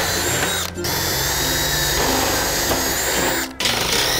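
Cordless drill running in long bursts as it drills and screws through the steel roof sheet's side channel. The motor whine stops briefly about three-quarters of a second in and again near the end.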